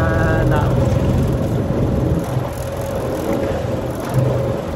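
Small fishing boat's motor running steadily with wind and water noise, getting somewhat quieter from about two seconds in.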